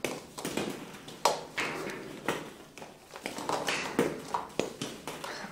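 Irregular light taps and clicks, about a dozen spaced unevenly, as a capuchin monkey moves about in her hammock swing and wire-mesh enclosure among hard plastic ball-pit balls.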